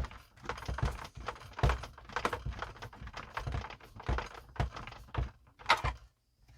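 Irregular clicking and knocking of a hard-plastic screwdriver being handled, with a few louder knocks, stopping about six seconds in.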